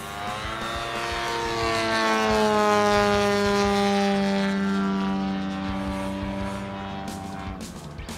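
DLE 170 twin-cylinder two-stroke petrol engine and propeller of a large RC model plane flying past overhead. The engine note swells to its loudest about three seconds in and falls steadily in pitch as the plane passes and draws away.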